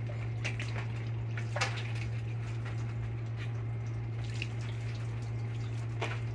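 Water splashing and dripping off a freshly brazed copper and brass refrigerant pipe joint as it is doused to cool, heard as scattered drips and small splashes over a steady low machinery hum.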